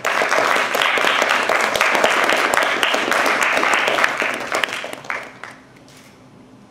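Audience applauding a certificate presentation. The clapping starts at once, holds steady, and dies away after about five seconds.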